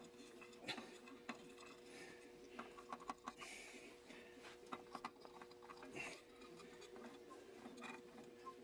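Faint, scattered light clicks and taps of small parts and tools being handled during hand work on a hydraulic steering valve, over a steady faint hum.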